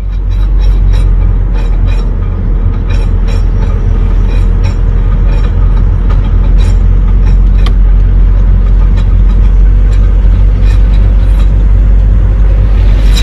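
Car driving slowly, heard from inside: a loud low rumble with repeated irregular sharp clicks, about two or three a second. This is the intermittent noise that appears on the left side at low speed in first and second gear, which is put down to the wheel area, perhaps the bearing or the drive joint, without certainty.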